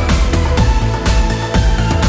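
Background electronic music with a steady, driving beat.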